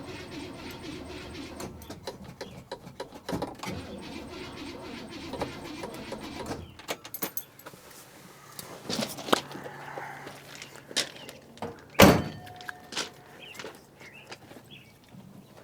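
1967 Buick LeSabre V8 turning over on starting fluid with a dry Carter AFB carburetor, stopping about seven seconds in. Scattered clicks follow, and there is a single loud clank near the end.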